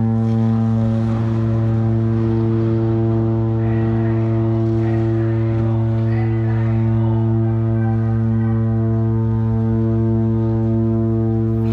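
Cruise ship's horn sounding one long, unbroken low blast with many overtones, held at a steady pitch: a continuous danger warning from the MSC Opera as it bears down on the quay. Faint shouts from onlookers show through in the middle.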